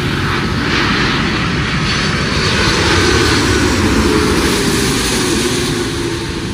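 Airbus A330-200's Rolls-Royce Trent 700 turbofan engines passing low overhead on landing approach. The jet roar swells to its loudest around the middle and eases near the end, with a faint whine that drops in pitch as the aircraft goes by.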